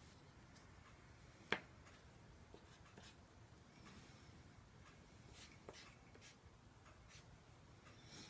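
Near silence broken by faint scattered taps and clicks of a painting tool and hands working on paper on a tabletop, with one sharper click about a second and a half in.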